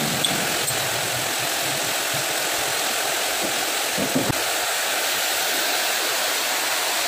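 Steady workshop machinery noise, an even hiss-like running sound with a faint high whine, with a brief low knock about four seconds in.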